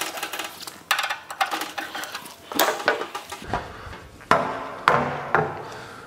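Front panel of a Baxi 600 Combi 2 gas boiler being unclipped, lifted off and set down: a string of clanks and rattles with several sharp knocks.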